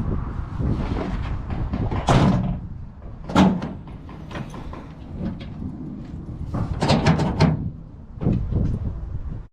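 Several separate knocks and clunks from a Toyota Tundra's tailgate and its latch being worked, with a pair of clunks close together late on.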